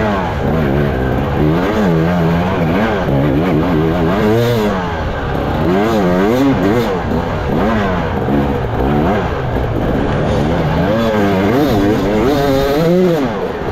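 Off-road racing motorcycle engine heard from on board the bike, revving up and dropping back over and over, about once a second, as the throttle is worked through the course.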